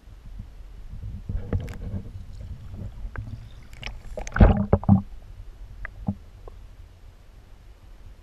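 Muffled underwater knocks, clicks and gurgles picked up by a submerged camera, over a steady low rumble of moving water. The knocks come in scattered bunches, loudest in a cluster about four and a half seconds in, then thin out.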